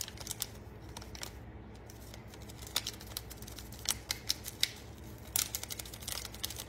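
Foil ramen seasoning packet crinkling and crackling in short, irregular bursts of clicks as it is shaken and squeezed to empty the beef flavour powder.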